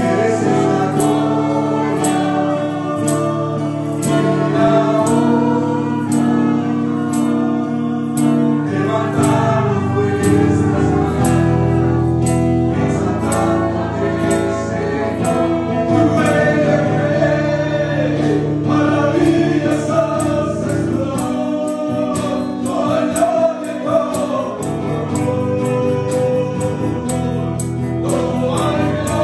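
Spanish-language Christian worship song: a man sings into a handheld microphone over sustained keyboard chords and a steady beat, with choir-like backing vocals.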